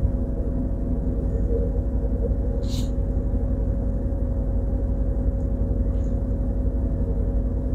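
Semi-truck's diesel engine running steadily at idle, an even low rumble with a constant hum. A brief faint tick about three seconds in.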